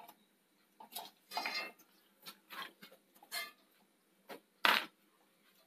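Wire-mesh skimmer lifting crisp fried curry leaves out of a metal frying pan: a few scattered light clinks and rustles as the skimmer touches the pan and the leaves shift in it, the loudest about three-quarters of the way through.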